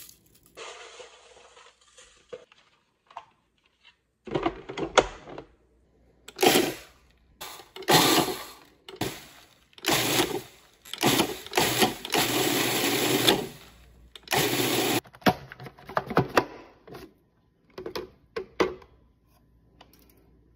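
Food processor pulsed in about a dozen short bursts, its blade chopping dried, crispy basil leaves into flakes, with one longer run of about a second and a half past the middle. Before the first burst there are only faint handling sounds.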